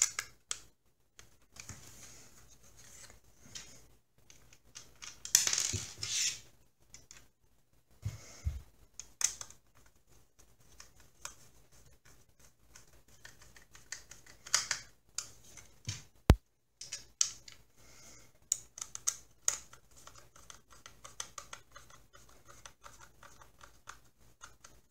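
White plastic shell of a bird-shaped sensor enclosure being handled and fitted shut: irregular clicks, scrapes and rattles of the plastic parts, with one sharp click about two-thirds of the way through.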